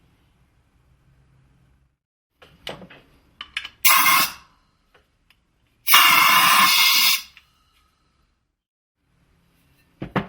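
A few sharp clicks and knocks, then two bursts of compressed air hissing out: a short one about four seconds in and a longer one of over a second about six seconds in.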